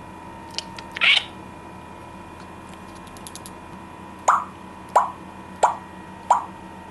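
Parrot making a series of popping, plop-like mouth sounds: four sharp pops about two-thirds of a second apart, each dropping quickly in pitch, after a softer click and a few faint ticks.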